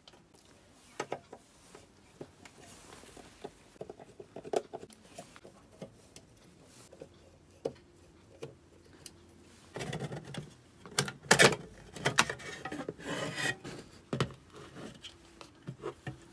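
Screwdriver turning out the screws of a computer power supply's sheet-metal case, with small clicks and scrapes. From about ten seconds in, the metal cover is worked loose and lifted off with louder scraping and clattering.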